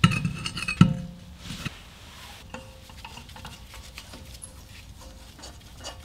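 Metal clanks and clinks from a steel car wheel and its lug nuts as the nuts are put on and spun down by hand. A few sharp ringing knocks come in the first second or so, then only light scattered clicks.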